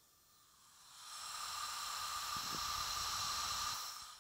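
Compressed air hissing with a faint whistle as it escapes from a Porsche 912 cylinder head and cylinder pressurized for a leak-down test. The hiss builds about a second in, holds steady, and fades near the end.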